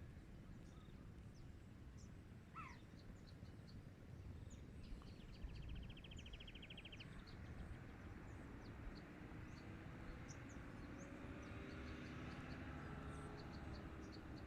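Faint outdoor ambience: scattered short high bird chirps over a low, steady background rumble, with a quick even trill about five seconds in.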